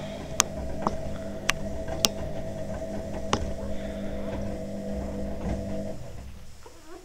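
A steady hum with a constant pitch, cut off about six seconds in, with four sharp clicks over the first few seconds.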